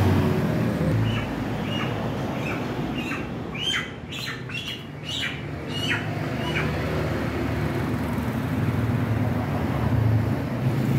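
Live chickens squawking: a run of about a dozen short, sharp calls over a few seconds, stopping about two-thirds of the way through. A steady low hum runs underneath.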